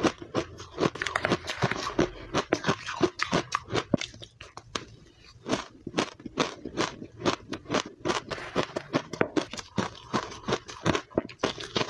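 Matcha powdery ice being chewed, a dense run of crisp crunches, with a metal spoon scraping and scooping the frozen powder in a plastic tub.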